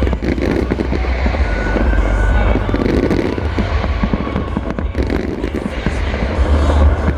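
Aerial fireworks display: a dense, continuous crackle of many small bursts over the deep rumble of shells going off.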